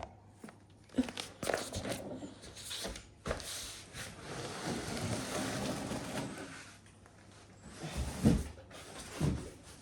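Large cardboard shipping box being lifted off a packed 3D printer: cardboard scraping and rustling as it slides up, with scattered knocks and two heavier thumps near the end.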